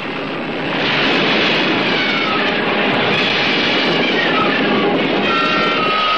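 Storm-at-sea sound effect: a steady rush of wind and heavy surging waves that swells up in the first second, with thin high tones sliding downward over it.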